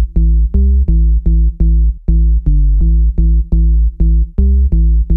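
Electronic background music: a pulsing bass line on a steady, fast drum-machine beat.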